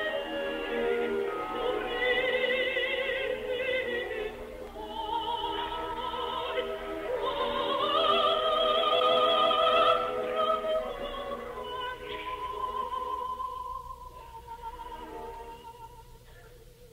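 Operatic soprano singing an aria with wide vibrato, backed by an orchestra, in an old live opera-house recording that cuts off above about 4 kHz with a faint low hum. Her line climbs to a loud high note about halfway through, then settles on a softer held note that fades near the end.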